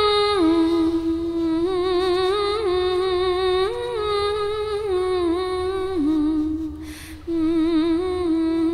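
A single voice humming a slow, wordless melody, holding each note with a wavering vibrato and stepping between pitches, pausing briefly for a breath about seven seconds in.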